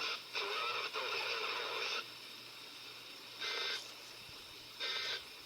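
Broadcast audio from a weather radio alert ends about two seconds in, over a steady hum and hiss. Then come two short buzzy bursts of digital data tone, the EAS end-of-message code, about a second and a half apart.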